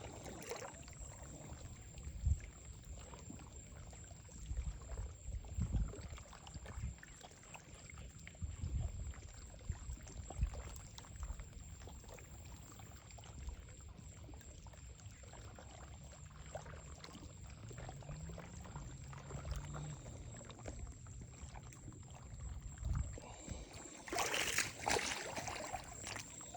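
Shallow water lapping and trickling, with irregular low rumbles and thumps and a louder noisy rush about 24 seconds in.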